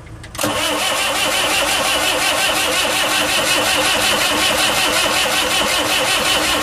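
Saviem SG-2's diesel engine turning over on the starter motor: a steady, rhythmic cranking with a high whine that starts abruptly about half a second in. The engine does not catch, which the owner puts down to a badly timed injection pump.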